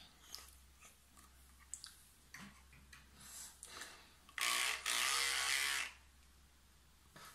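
Children's electric toothbrush buzzing in the mouth for about a second and a half, with a brief break just after it starts, then cutting off. Before it, faint clicks and taps come from handling the brush and toothpaste tube.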